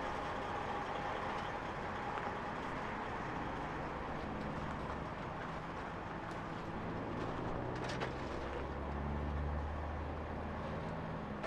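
Diesel truck engines running steadily, a low hum, with a heavier rumble swelling about eight seconds in.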